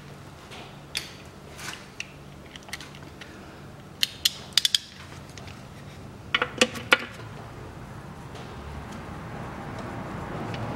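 Ratchet driving an 8 mm hex bit, clicking in two short runs about four seconds in and again near seven seconds, as the engine's oil drain plug is screwed back in after draining.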